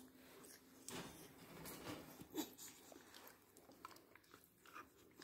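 Near silence with faint, scattered soft rustles and small clicks: a hand stroking a Boxer puppy lying on its crate bedding.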